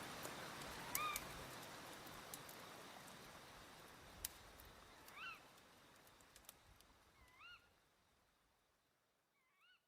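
Faint recorded nature soundscape fading out: a soft steady rushing hiss with scattered sharp crackles. A short rising-and-falling bird call comes four times, about every two seconds, and everything dies away to silence by the end.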